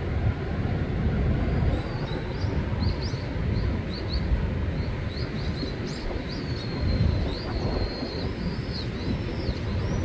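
Rough sea surf after rain: a loud, steady low rumble of breaking waves that swells and eases. Small birds chirp with short, high rising and falling calls from about a second and a half in.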